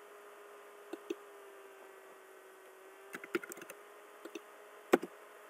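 Scattered clicks from a computer keyboard and mouse: two at about a second in, a quick run of keystrokes about three seconds in, and the sharpest click near the end, over a faint steady hum.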